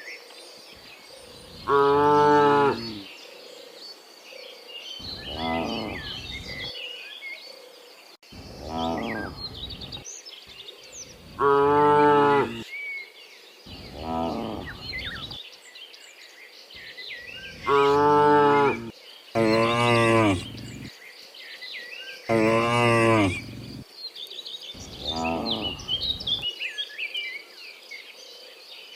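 A herd of cows mooing, one after another: about nine long, drawn-out calls, some loud and close, others fainter. Small birds chirp in the background.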